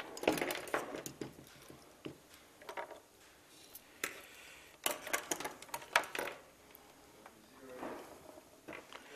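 Meter test leads being handled: light clicks and clatters of the plastic plugs and probes, coming in several short clusters.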